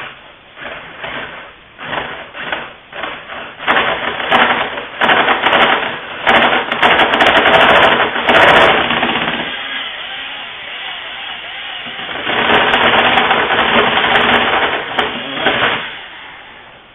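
Power drill with a 1 3/8-inch wood bit boring through a recliner's wooden frame. It starts with a few short trigger bursts, then runs long under load, eases off about ten seconds in, runs hard again and stops near the end as the bit goes all the way through.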